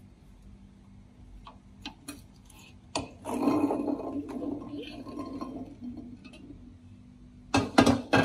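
Steamed lotus seeds pouring from a stainless steel pot onto a ceramic plate: a few light clicks, then a clattering rush of seeds lasting about three seconds, and several sharp knocks near the end.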